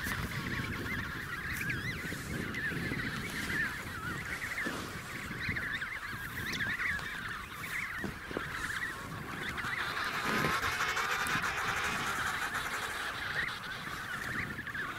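Chorus of an emperor penguin colony of adults and chicks: many overlapping warbling, honking calls that run on without a break and grow denser about two-thirds of the way through.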